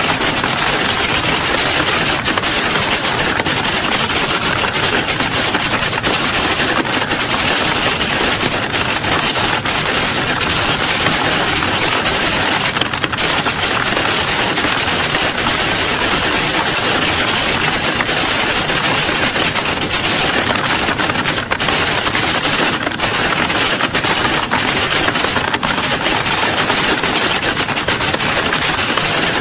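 Many keyboards being typed on at once: a dense, unbroken clatter of keystrokes.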